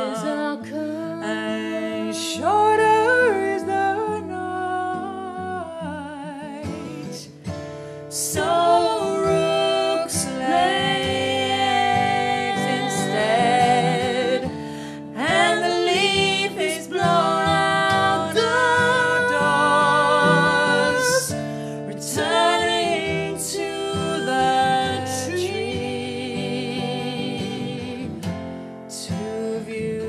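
Women singing a song with guitar accompaniment, the voices holding notes with vibrato.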